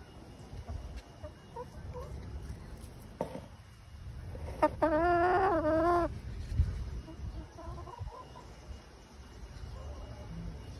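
Backyard chickens clucking softly, with one loud, drawn-out call about halfway through that wavers in pitch for over a second.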